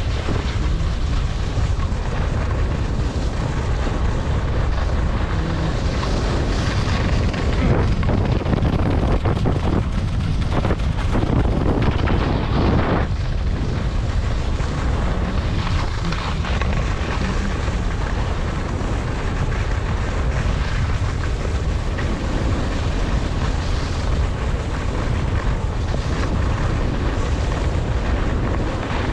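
Wind buffeting the microphone in a steady, loud rumble during a downhill ski run, over the hiss of skis sliding on snow.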